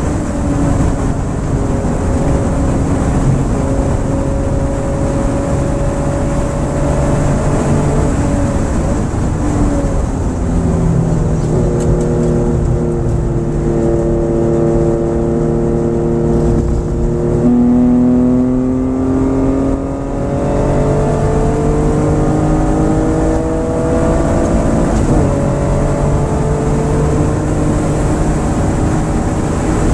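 The 1967 Porsche 911S 2.0's air-cooled flat-six running hard at racing revs, heard from inside the car. Its pitch climbs as it accelerates, breaks off briefly at each gear change, and drops for a short lift off the throttle about twenty seconds in.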